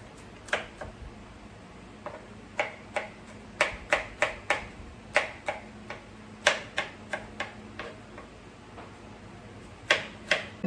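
Kitchen knife chopping on a cutting board: sharp, uneven knocks, often two or three in quick succession with short pauses between.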